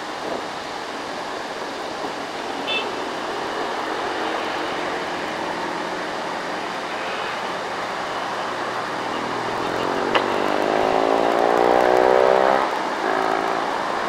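Road traffic on a hill, with a loaded Mitsubishi dump truck's diesel engine pulling uphill among cars and motorcycles. Near the end an engine rises steadily in pitch and gets louder for about three seconds, then drops off suddenly.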